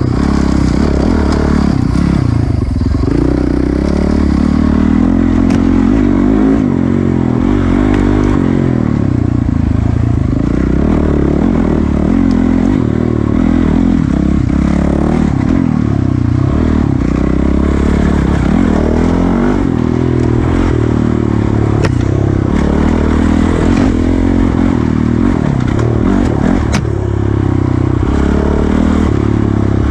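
Dirt bike engine ridden hard, its revs repeatedly rising and falling as the rider accelerates, shifts and backs off. A few sharp knocks come from the bike over the rough trail.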